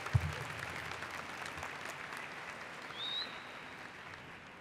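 Audience applauding after a speech, slowly fading. There is a low thump right at the start and a short high whistle about three seconds in.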